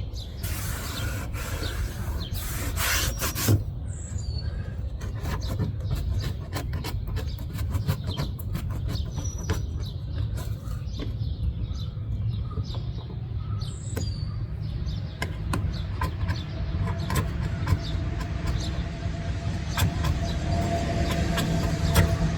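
Screwdriver dry-scraping old, gooey window adhesive off a car's quarter-window frame: irregular scrapes and ticks throughout, with birds chirping now and then.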